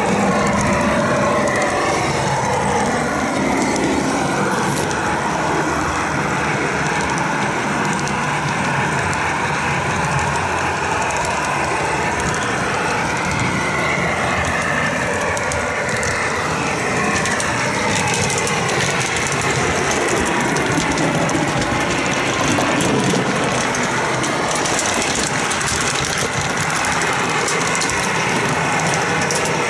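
O-gauge model train running steadily along the track: wheels rolling on the rails and the running gear droning, heard close up from a car coupled to the locomotive, with a whine that slides up and down in pitch.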